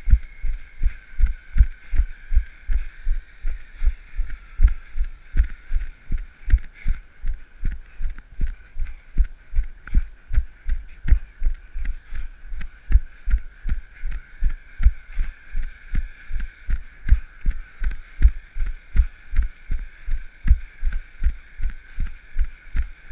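A runner's footfalls on pavement, heard as steady low thumps about three a second through the carried camera, with a faint steady hiss behind them.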